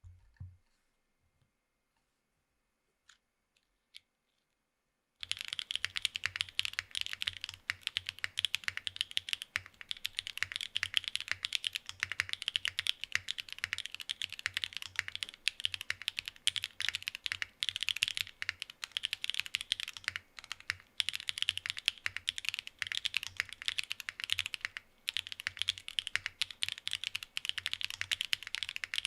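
Fast, continuous typing on a Mode Envoy mechanical keyboard with Obscura long-pole linear switches, a carbon fiber plate, no foam and Cherry-profile keycaps. It starts about five seconds in, after a few faint isolated clicks.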